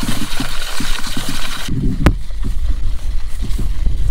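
Low, steady rumble of wind and handling noise on the microphone, with a single sharp click about two seconds in.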